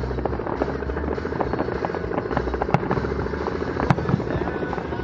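Aerial fireworks going off: dense crackling over a low rumble, with two sharp bangs about a second apart near the middle.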